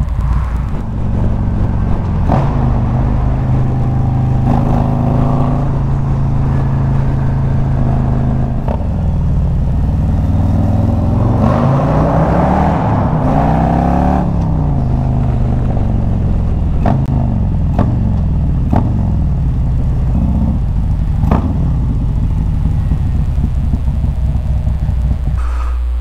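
Harley-Davidson V-twin motorcycle engine running under way, with steady engine tones. About ten seconds in, the engine pitch rises and falls for a few seconds as the revs change, then settles back to a steady run.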